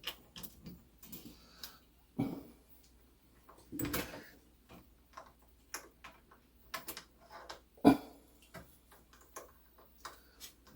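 Irregular small clicks and knocks of metal parts and tools being handled while a clock mainspring is fitted to its barrel, with the sharpest knock about eight seconds in.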